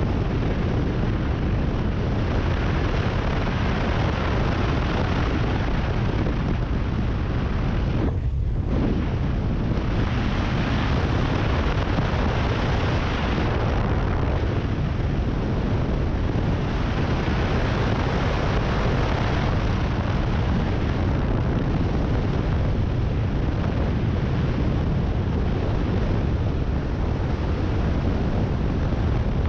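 Steady rush of wind buffeting the microphone of a cruiser motorcycle at road speed, with its engine and tyre noise underneath. There is a brief lull in the hiss about eight seconds in.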